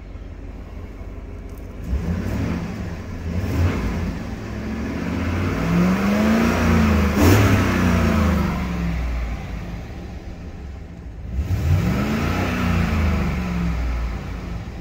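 2010 Chevrolet Silverado's 5.3-litre V8 idling and being revved with the gas pedal: two short blips, then a longer rev that climbs and falls back to idle, then one more rev near the end before it settles again.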